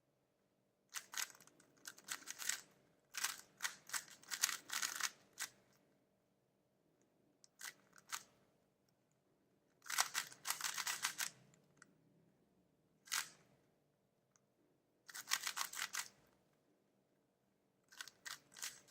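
Plastic layers of a 4x4 speed cube being turned in quick clicking runs, several bursts of rapid turns with short pauses between them, while its edges are paired.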